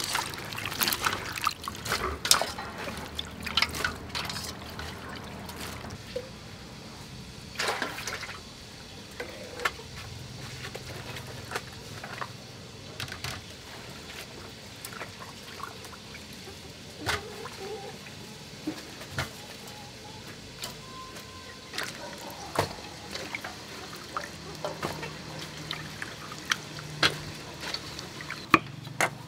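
Vegetables being washed by hand in a metal basin of water: irregular splashing, swishing and dripping, busiest in the first several seconds and more scattered after. A few sharp taps come near the end.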